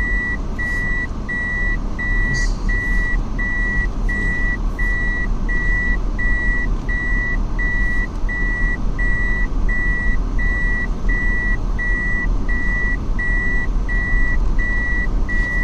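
Vehicle reversing alarm beeping evenly, a little over once a second, with one steady pitch, over the low rumble of a running engine.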